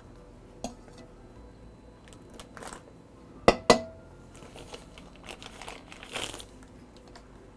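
Paper butter wrapper crinkling as it is handled and folded, with two sharp clicks a moment apart about halfway through.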